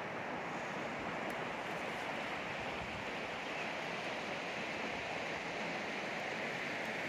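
Steady rush of river water.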